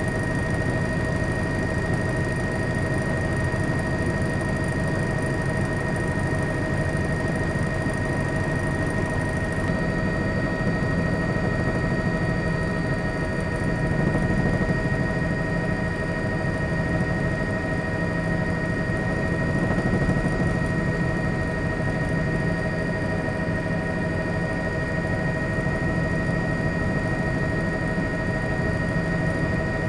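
A steady engine drone with a constant high whine, unbroken throughout, swelling slightly twice.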